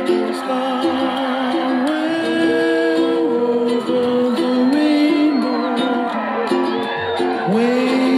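Background music: a song with ukulele and a voice holding long, gliding notes without clear words.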